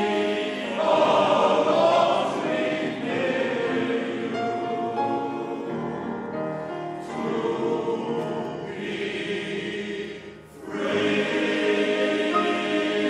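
Male voice choir singing in harmony, holding long chords, with a short break between phrases about ten seconds in.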